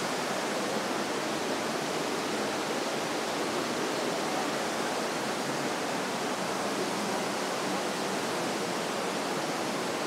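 Steady rush of a waterfall and the burn running over rock ledges in a gorge.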